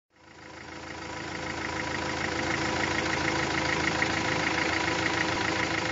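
An engine running at a steady idle with a rapid regular knocking pulse. It fades in from silence over the first second or two.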